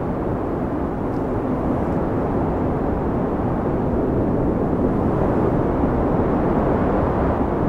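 Steady low rushing wind noise with no distinct events, the sound of a snowy blizzard.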